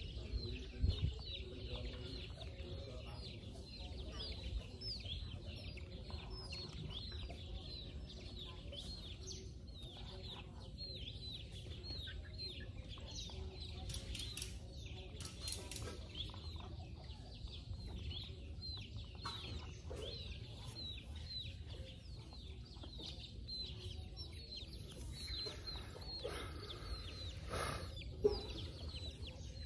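Chickens clucking around a farmyard over a constant run of short, high chirps. A sharp knock comes about a second in and another near the end.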